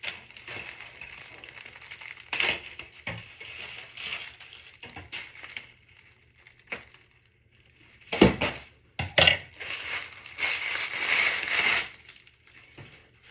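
Packaging being handled and crinkled by hand, with scattered clicks and knocks and a longer crinkling rustle near the end.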